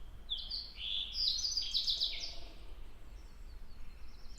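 A songbird singing a quick run of high notes, about two seconds long, that steps down in pitch toward the end. Another bird's faint repeated high notes sound behind it.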